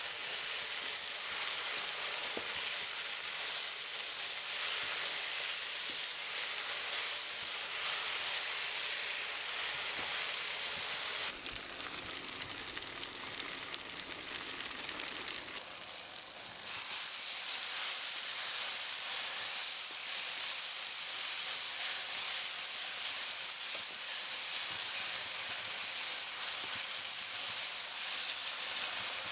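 Food sizzling as it fries in a pan, a steady crackling hiss. About eleven seconds in it turns quieter and duller for roughly four seconds, then returns as before.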